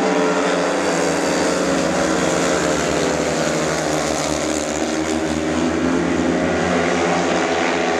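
Several speedway motorcycles racing, their 500cc single-cylinder methanol engines running hard with notes overlapping.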